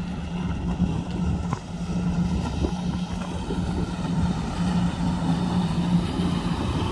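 Motorboat engine running steadily at speed, a constant hum, with water rushing and wind noise.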